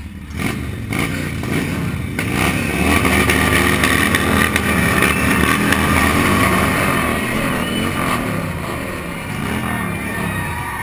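Cruiser motorcycle engine revving and accelerating, its pitch rising and falling through the gears. It comes in suddenly, swells over the first few seconds, then eases slightly.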